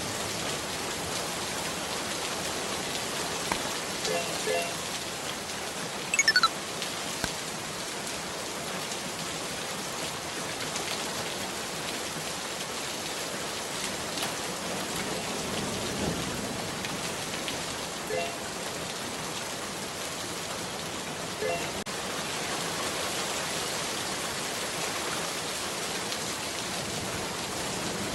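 Steady hiss of rain falling. A short, high whistle falls sharply in pitch about six seconds in, and a few brief faint chirps come at intervals.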